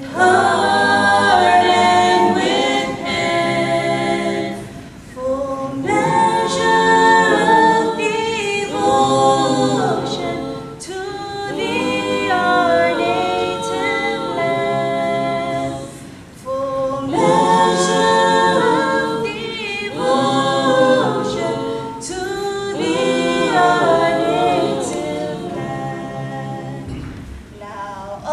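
A small group of men and women singing together unaccompanied into handheld microphones, in long phrases with brief pauses between them.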